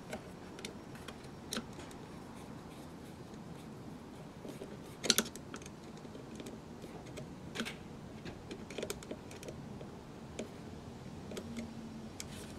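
Scattered small clicks and taps as a hand handles the oil extractor pump's hose fitting and clamp, with one sharper click about five seconds in.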